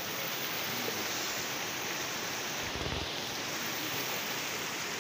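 Steady rush of fast-flowing river water, an even unbroken noise, with a short low rumble about halfway through.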